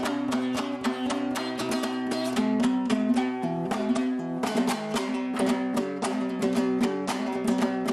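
Dombra strummed in a quick, even rhythm of about five strokes a second, playing a Kazakh folk melody over steady low notes.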